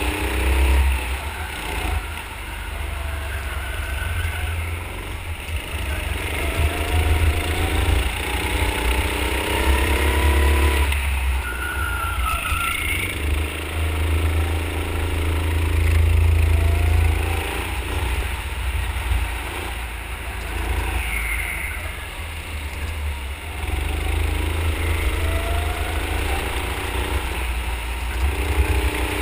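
Go-kart running hard around a track from the driver's seat, its motor note rising in pitch along the straights and dropping back for the corners, over a steady low rumble.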